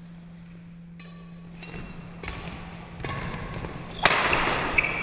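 Badminton rally in a sports hall: rackets strike the shuttlecock a few times, with sharp hits from about two seconds in. The loudest is a jump smash about four seconds in, echoing in the hall.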